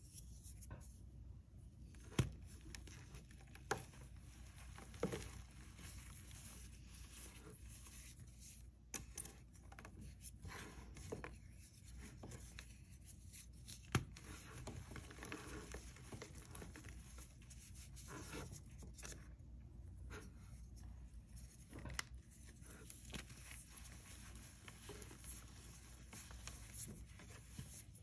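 Soft reformed cornstarch chalk being squeezed and crushed by hand: a steady soft crumbling and rustling of powder, broken by a few sharp snaps as pieces crack apart.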